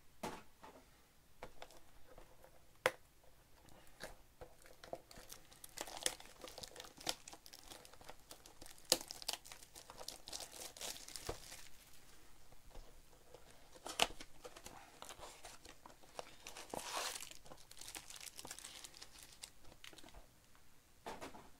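Plastic wrappers of Bowman baseball card packs crinkling and tearing as the packs are opened and handled, in irregular stretches with a few sharp clicks.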